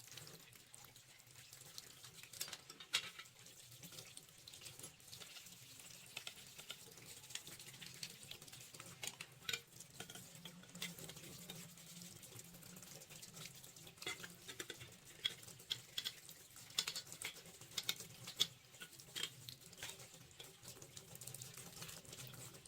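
Faint water running from a tap, with many small scattered clicks and scratches, as when small parts are being handled or scrubbed.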